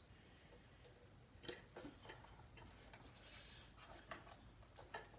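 Faint, scattered clicks and light taps of a Mac Mini's internal parts being handled while its power supply is worked loose, over near-silent room tone.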